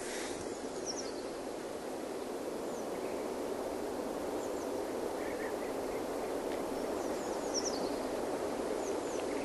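Steady outdoor rushing noise, even throughout, with a few short, high bird chirps scattered through it.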